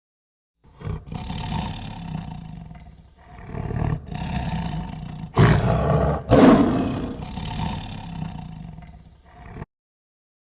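A big cat roaring: several long roars one after another, the loudest two a little past the middle. The sound starts and stops abruptly, as an edited clip does.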